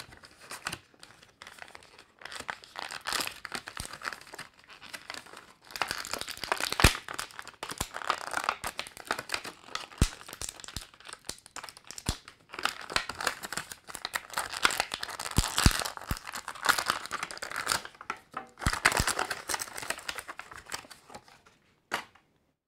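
Clear plastic packaging crinkling and crackling in irregular handfuls as an action figure is worked out of its plastic tray and wrapping; it dies away near the end, followed by a single click.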